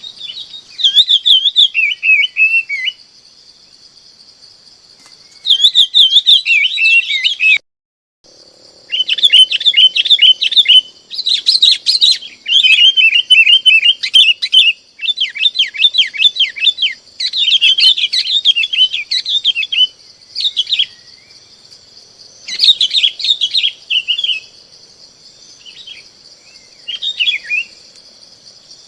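Bulbuls (bông lau) calling to the flock: bursts of quick, bubbling chirped phrases, often several birds overlapping, over a steady high hiss. The sound cuts out for a moment about eight seconds in.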